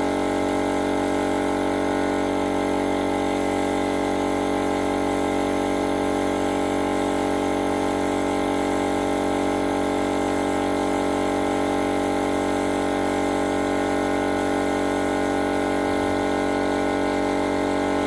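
Air compressor running, a loud, unchanging mechanical drone.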